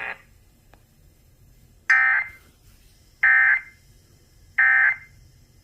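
Emergency Alert System end-of-message (EOM) signal: three short, loud bursts of digital data tones about a second and a half apart, marking the end of the alert.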